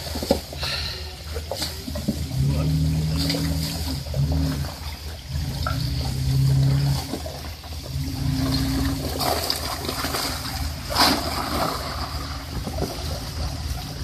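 Jeep Wrangler engine running at low speed, its note rising and falling as it crawls through a shallow rocky creek, with water splashing around the tyres. A brief louder burst of noise comes about eleven seconds in.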